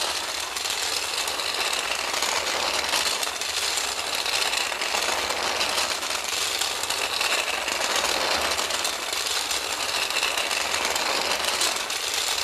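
Battery-powered Daiso toy train, a model of the 883-series Sonic, running along a tatami mat: its small electric motor and plastic gearing make a steady whir.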